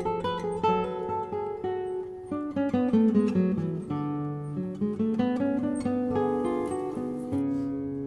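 Acoustic guitar music: a melody of quickly plucked notes over held low bass notes.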